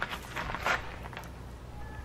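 A metal ladle scraping and knocking against a cast-iron cauldron as meat is scooped out: a few short clicks and scrapes in the first second or so.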